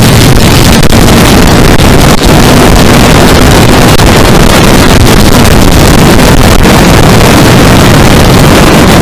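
Yamaha R3's parallel-twin engine running steadily at freeway speed, with loud wind rush on the microphone.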